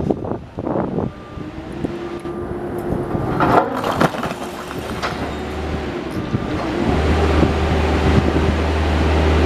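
Heavy demolition machine running under load, its engine drone and steady whine growing louder, with a few sharp cracks and knocks of breaking debris about three and a half to five seconds in.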